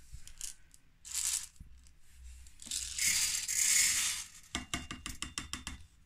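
Laundry and a clear plastic measuring cup being handled inside a front-loading washing machine drum: fabric rustling, a louder rushing hiss in the middle, then a quick run of clicks and clatters with a faint ring near the end.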